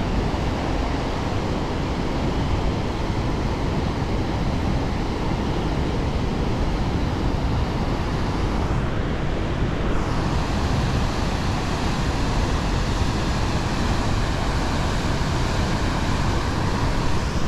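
Steady rush of fast, turbulent river water churning out below dam gates in a heavy current.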